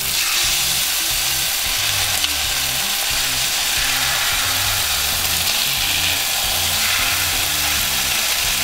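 Filet mignon steaks sizzling steadily in hot olive oil in a stainless-steel skillet, just flipped to sear the second side.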